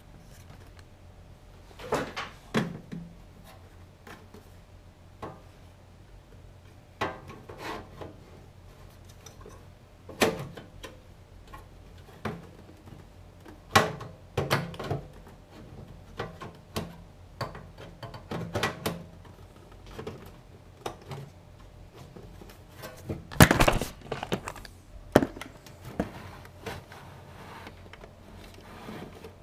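Irregular knocks and clunks of a DVD drive being pushed into a tight metal drive bay on a PC test bench, with the bay's side metal bent to make room. The loudest run of knocks comes about two-thirds of the way through.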